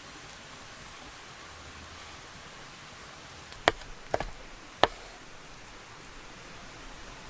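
Three short, sharp knocks, a little over half a second apart, over a steady background hiss.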